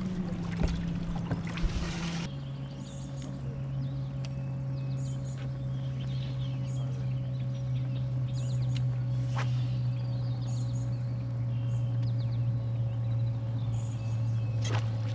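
Bow-mounted electric trolling motor running with a steady hum that drops to a lower pitch about two seconds in, as the motor is turned down.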